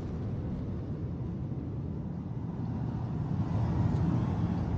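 Low rumble of the Supertech twin towers collapsing after their controlled-implosion demolition, a steady low noise that grows louder about three seconds in.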